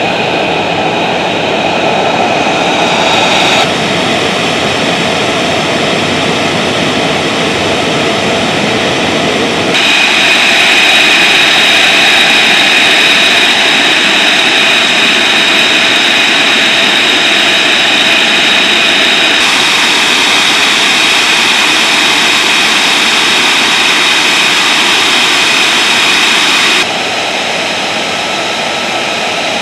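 F-35B Lightning II's F135 jet engine running on the ground: a steady, loud rush of noise with a high whine on top. The sound jumps abruptly in level and tone several times where shots are cut together.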